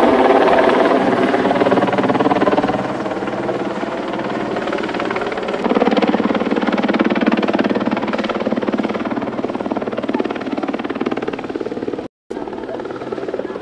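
Steady engine drone with a buzzing, many-toned hum. It grows louder and rougher about six seconds in, and cuts out for a moment near the end.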